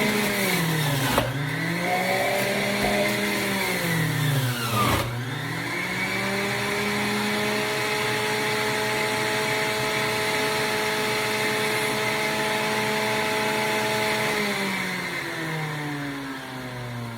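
Electric juicer motor running at a steady pitch. Its speed sags sharply twice in the first five seconds as hard produce such as carrots and beets is pushed into it, and it recovers each time. Near the end it winds down, its pitch falling.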